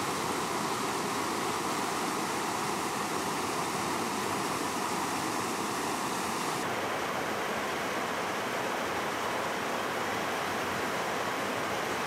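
Mountain creek rushing through rapids over boulders: a steady, even rush of white water. The sound turns a little duller about six and a half seconds in.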